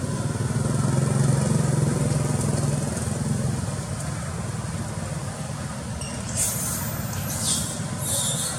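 A motor vehicle engine running steadily, loudest in the first few seconds, with two high-pitched squeals near the end.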